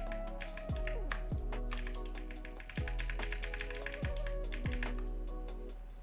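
Background music: a chill electronic track with held tones and a steady kick-drum beat. Over it, a quick run of sharp clicks like computer keyboard typing, densest about two to four seconds in.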